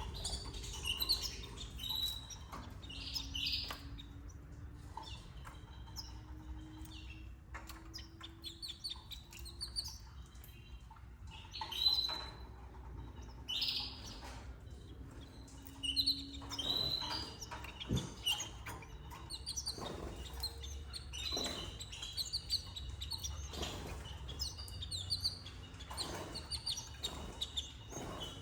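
Canaries chirping: short bursts of high, quick notes recurring every second or two, with a few light clicks between them.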